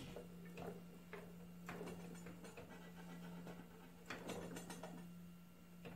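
Faint clicks and clacks from a Nelson Brothers hit-and-miss engine being turned over slowly by hand at the flywheel, not running, to check its Webster low-tension magneto for spark. A steady hum runs underneath.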